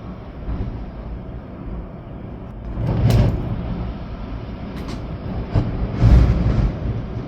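Storm wind and rain, gusting hard twice, about three seconds in and again about six seconds in, the gusts buffeting the microphone.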